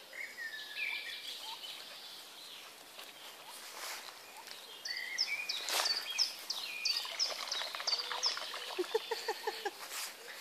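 Songbirds singing over a steady outdoor hiss: a few falling chirps early on, then a quick run of repeated high chirps with falling notes in the middle, and a short series of lower notes near the end.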